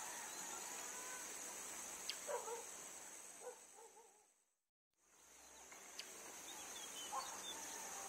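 Steady high-pitched insect buzzing with a few short chirping calls over it. About halfway through, the sound fades out to silence, then fades back in.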